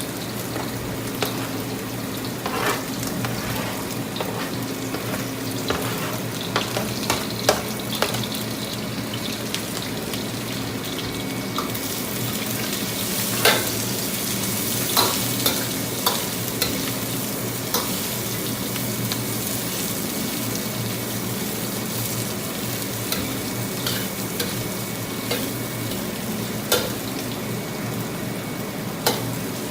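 Pieces of cobra meat sizzling in hot oil in a pan as they are stir-fried with chilies, ginger and garlic. Frequent short clicks of the utensil against the pan run through the sizzle, which grows louder about twelve seconds in.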